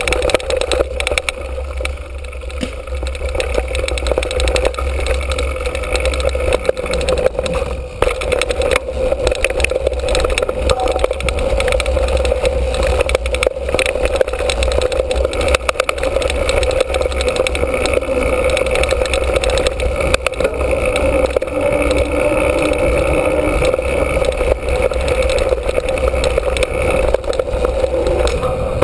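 Mountain bike rolling fast down a dirt and gravel trail, heard from a camera mounted on the bike: a steady rumble of tyres and wind, with scattered clicks and knocks from the bike over bumps.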